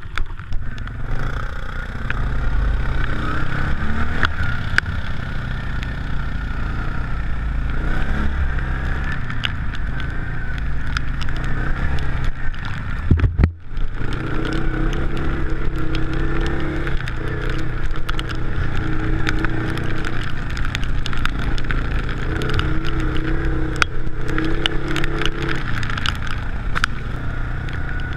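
Off-road vehicle engine running under load while driving over rough, wet ground, with a steady low drone and many sharp ticks from rain hitting the microphone. The sound drops out briefly about halfway through, then the engine picks up again.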